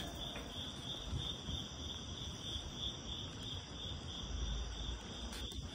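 Crickets chirring steadily in a high, pulsing drone over the low rumble of a bicycle rolling across a concrete floor.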